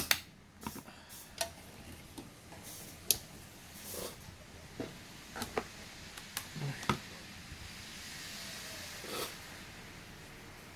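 Hands handling computer hardware on a workbench: scattered light clicks and knocks, then a soft hiss about eight seconds in.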